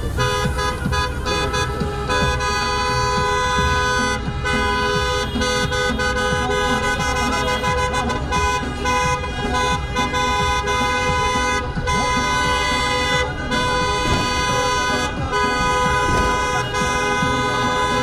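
Car horns of a wedding convoy honking together, several horns at once forming a steady, dissonant chord over engine and traffic noise. The horns are held almost continuously, with a few brief breaks.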